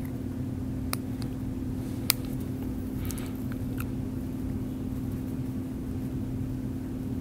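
Steady low background hum with a few sharp, light clicks, the loudest about two seconds in, from a metal needle driver and thumb forceps handling a suture.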